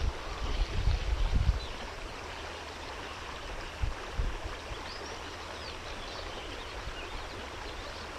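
Trout stream running, a steady rush of water. Low rumbles on the microphone stand out in the first second and a half and again around four seconds in.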